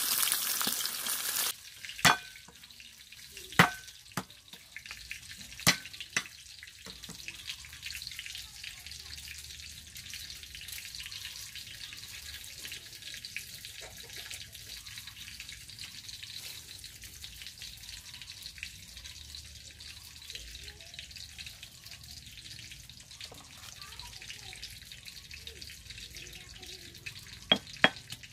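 Fish frying in oil, a loud sizzle that cuts off about a second and a half in. Then three or four sharp knocks of a cleaver on a round wooden chopping block as ginger is cut, and a long stretch of faint hiss with small handling sounds. Near the end come a few quick strikes of a pestle in a stone mortar.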